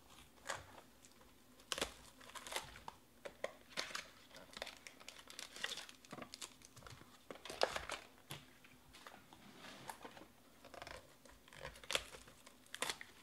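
Trading-card pack wrappers and shrink-wrap crinkling and tearing in the hands as packs are pulled from the box and opened: irregular crackles and rustles with no steady rhythm.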